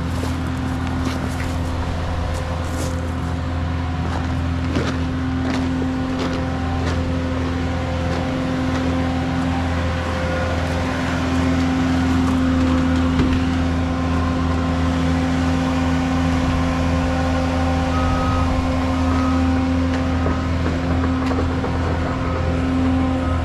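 Engine idling steadily with an even low hum that grows a little louder about halfway through. Light clicks and knocks come through during the first third.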